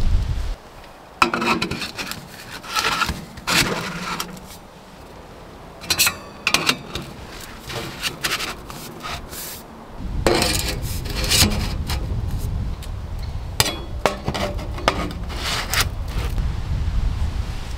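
Stainless steel flue pipe being handled and its sections pushed together: repeated scraping and rubbing strokes with a few sharp clicks. A low rumble runs underneath from about ten seconds in.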